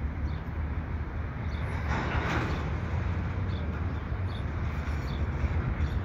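Diesel rumble of a RailPower RP20BD switcher locomotive working the yard, steady and low, with a brief rushing noise about two seconds in.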